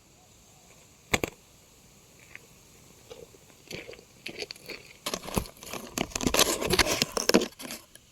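A single sharp knock about a second in, then irregular crackling and rustling that thickens into a dense crackle before stopping near the end, like something being handled or crumpled close to the microphone.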